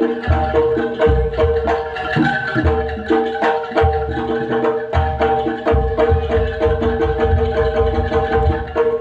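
Live jaranan music from a gamelan-style ensemble: kendang hand drums and low drum beats over tuned gong-chime and metallophone strokes, with a steady fast rhythm and a held pitched note running through it.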